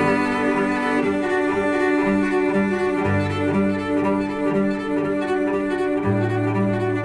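Background music played on bowed strings: a low sustained bass note that changes every few seconds, under a pulse of short repeated notes.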